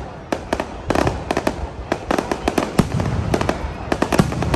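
Fireworks going off: a dense, irregular run of sharp bangs and crackles, several a second, over a steady low rumble.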